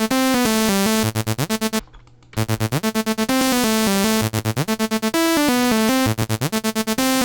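Electronic synthesizer loop playing back through a subtle tape-saturation plugin: a bright melody over a low bass, with stretches of fast rhythmic chopping. It stops for about half a second near two seconds in, then starts again.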